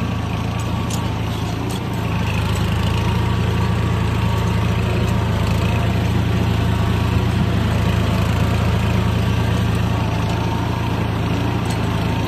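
Swaraj 960 FE tractor's three-cylinder diesel engine running steadily, a little louder from about two seconds in.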